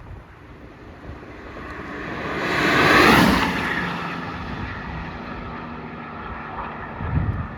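Stock 2016 Subaru BRZ's 2.0-litre flat-four driving past: the engine note builds, peaks about three seconds in, drops in pitch as the car goes by, then fades while it stays audible. Wind rumbles on the microphone throughout, with a gust near the end.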